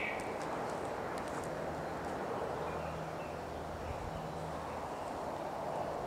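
Outdoor ambience on a wooded path: a steady, even hiss. A faint low hum comes in about a second and a half in and fades near the end, and there are a few faint ticks in the first second or so.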